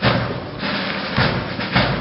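Marine drum and bugle corps drums playing a steady beat, about two strikes a second, with some low sustained notes under it.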